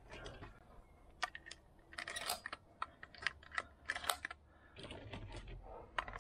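A semi-automatic shotgun and its cartridges being handled between rounds: a run of light, irregular clicks and clacks.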